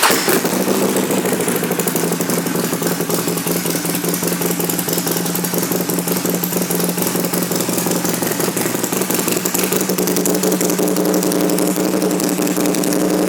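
Harley-Davidson Sportster XL1200C's 1200 cc V-twin idling steadily through Rinehart 2-into-1 exhaust pipes, just after being started.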